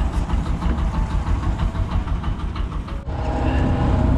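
Fishing boat's diesel engine running steadily with a low rumble and a rapid ticking over it. The sound changes abruptly about three seconds in.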